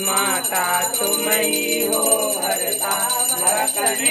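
Devotional music with a melodic line sung over it, and a small bell ringing continuously and rapidly behind it.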